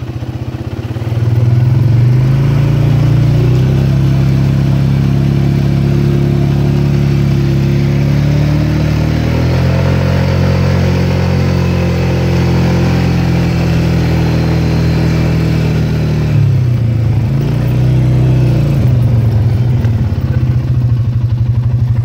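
Polaris Sportsman 550 EFI ATV's single-cylinder engine driving the quad in four-wheel drive. It speeds up about a second in, runs steadily, picks up again around ten seconds, eases off at about sixteen seconds, and comes back on near the end.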